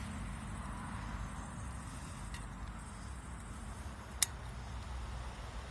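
Dnipro-M ratchet pruning shears cutting through a plum tree's water sprout: a faint click about two and a half seconds in, then a single sharp snap a little past four seconds, over a low steady rumble.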